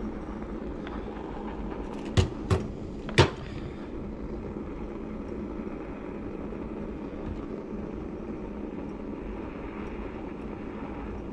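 Handheld butane kitchen torch burning with a steady, low flame noise as it is played over a brass Trangia burner. Three sharp knocks sound about two to three seconds in.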